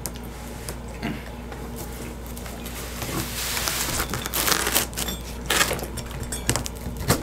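A pizza wheel cutter rolling through a pepperoni pizza's crust in crunching, scraping strokes that start about three seconds in, with a few sharp clicks.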